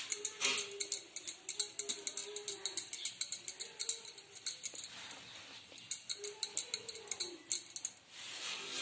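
Bangles clinking in a quick, even rhythm, about six clicks a second, shaken by hands rolling a ball of gulab jamun dough between greased palms; the clinking pauses for about two seconds around the middle, then starts again.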